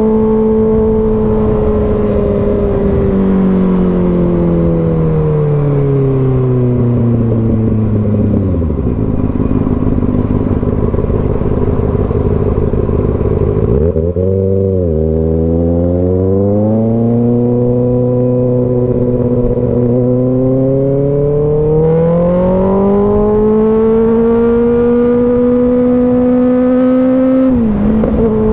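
2024 Kawasaki ZX-6R's 636 cc inline-four engine under way. The revs fall steadily, then a sharp rev blip comes about halfway through, followed by a long, even climb in revs. Near the end the revs dip briefly and pick up again as it changes gear.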